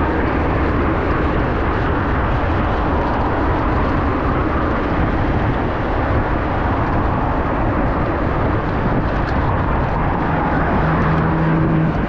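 Steady rush of wind and street traffic heard from a moving bicycle, loudest in the low range. A low steady engine hum from a vehicle joins about eleven seconds in.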